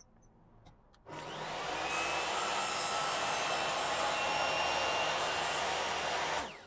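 Table saw switched on about a second in and running steadily while a crosscut sled pushes a plywood strip past the blade, shaving a fraction of a millimetre off its jigsaw-rough edge; switched off near the end and winding down.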